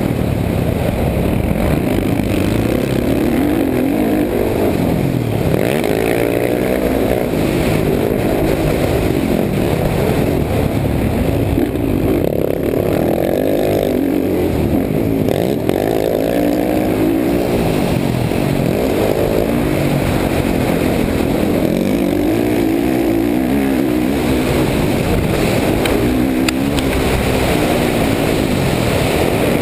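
Dirt bike engine revving up and falling back over and over as the rider works the throttle around a motocross track, heard up close from the rider's helmet.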